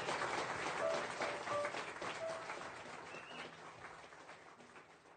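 Live club audience applauding, with scattered cheers, at the end of a jazz number. The applause fades steadily away as the recording is faded out.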